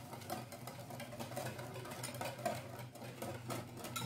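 Wire whisk beating a semolina batter in a plastic mixing bowl: quick, repeated scraping and clicking strokes, over a steady low hum.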